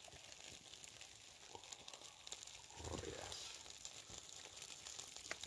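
Faint crinkling and crackling as a small plastic pudding pot is handled and its lid worked open, with a soft murmur about three seconds in.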